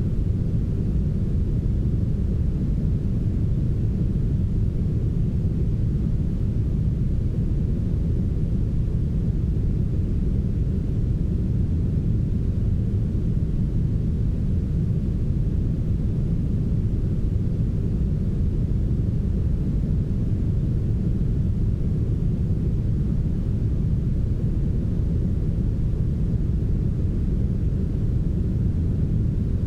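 Steady brown noise: an even, deep hiss with its weight in the low end, fading off toward the highs, with no change in level.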